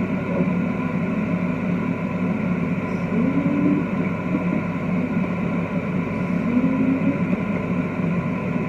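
Steady machine hum holding several fixed pitches, like a fan running.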